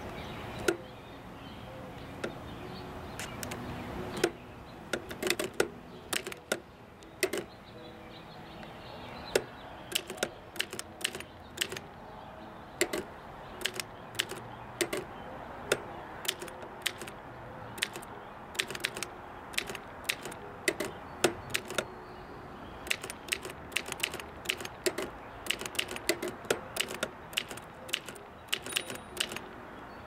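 1934 Olivetti M40 manual desk typewriter being typed on: sharp, irregular clacks of the typebars striking the paper, in quick runs separated by short pauses.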